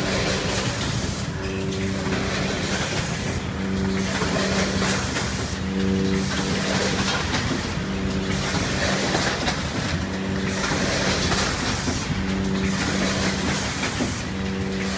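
Rotary premade pouch filling and sealing machine running through its cycle: a low hum swells and fades about every two seconds over steady mechanical clatter and hiss.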